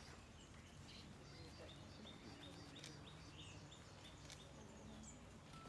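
Faint outdoor ambience with small birds chirping, including a quick run of short repeated notes about two seconds in, over a steady low hum.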